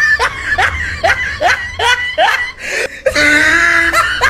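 Laughter: a quick run of short, rising syllables, about three a second, then one held high-pitched note about three seconds in.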